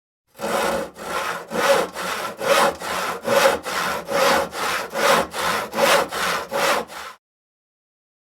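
Hand saw cutting through wood in steady back-and-forth strokes, a little over two a second, that stop abruptly about seven seconds in.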